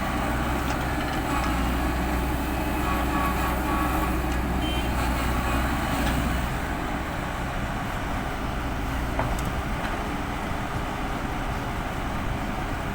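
Diesel engines of heavy earthmoving machinery running steadily, the deep low engine note easing a little about halfway through.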